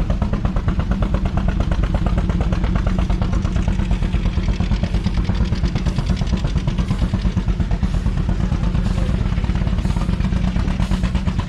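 Steam traction engine running steadily, a fast, even beat over a low rumble.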